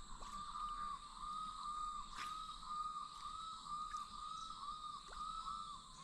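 Insects calling in the bush: a faint, steady pulsing drone of about two pulses a second.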